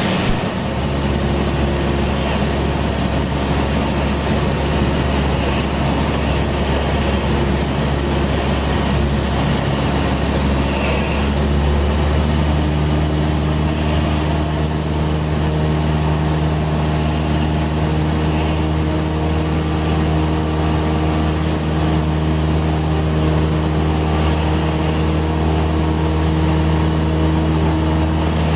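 Cessna 172's four-cylinder piston engine and propeller droning steadily in cruise, heard from inside the cockpit. The note shifts slightly about twelve seconds in and then holds steady.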